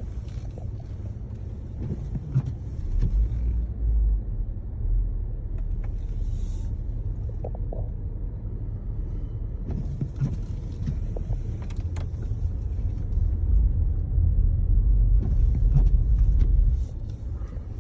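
Jeep Grand Cherokee driving through fresh snow, heard from inside the cabin: a low road and tyre rumble with scattered knocks, building up over the last few seconds and then dropping off abruptly near the end as the Jeep brakes to a stop.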